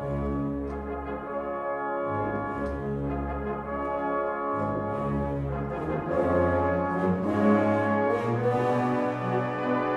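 Background music: slow, sustained chords that swell louder about six seconds in.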